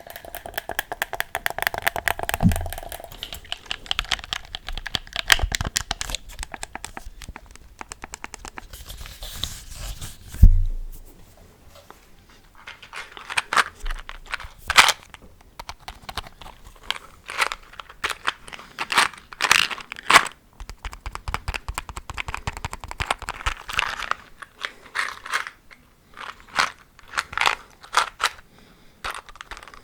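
Close-miked ASMR trigger sounds: dense crackling and clicking for about the first ten seconds, a single low thump about ten and a half seconds in, then sparser crisp clicks and crackles.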